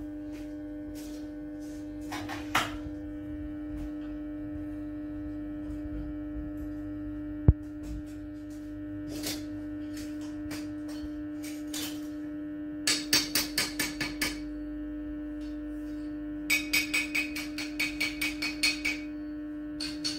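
Light ringing metal-on-metal taps at a bench vise: a single sharp knock, then two quick runs of taps, about half a dozen a second, the second run longer, over a steady hum.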